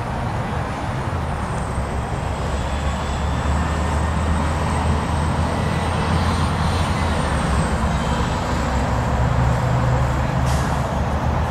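A vehicle engine running with a steady low rumble, over a general outdoor traffic hum.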